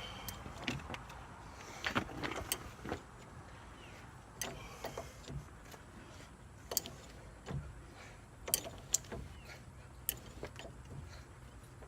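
Hand tools clicking and knocking against metal parts of a truck's front hub assembly, in irregular sharp clicks with a faint low hum underneath.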